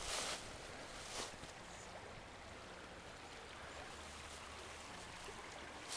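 A river flowing with a steady, even rush of water. Near the start there are a couple of footsteps in dry fallen leaves, about a second apart.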